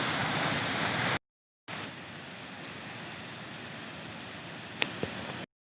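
Steady rushing of a waterfall, which drops out completely about a second in and comes back quieter and more muffled. A single sharp click sounds near the end.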